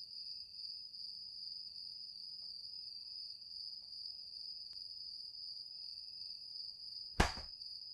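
Crickets singing as a steady high-pitched drone, with one loud sharp knock about seven seconds in.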